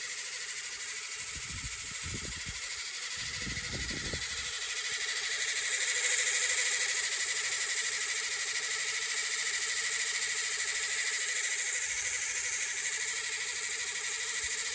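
Old fishing backing line running off a reel as it is pulled off by hand for re-spooling: a steady whir with a high hiss. A few low bumps from handling come about two to four seconds in.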